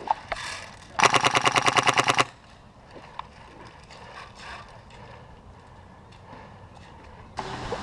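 A burst of full-auto fire from a Polarstar HPA-powered airsoft RPK, about a second long at roughly eleven shots a second.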